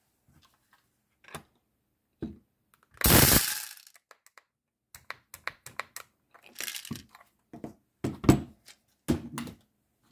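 Plastic clicks and knocks from an airsoft mid-cap magazine and a plastic unloader tool being handled and fitted together, with one loud, short rush about three seconds in that fades away.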